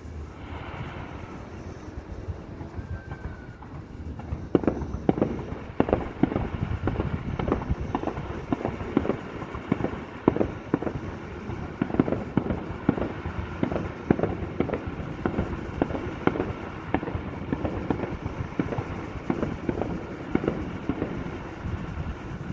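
Fireworks display: a brief rising whistle, then from about four and a half seconds in, shells bursting in quick succession, several sharp bangs and crackles a second over a low rumble.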